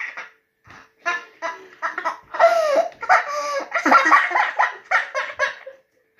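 A woman and a young boy laughing hard together in quick, repeated bursts, after a short pause at the start; the laughter dies away near the end.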